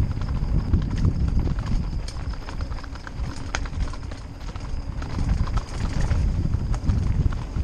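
Mountain bike riding fast over rough trail ground: rapid, irregular knocks and rattles from the tyres and frame over a constant low rumble.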